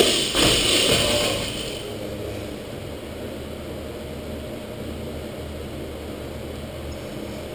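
Clatter and ringing of a dropped barbell with plates, dying away over the first second or so, then a steady low mechanical hum, such as the ventilation of a large gym.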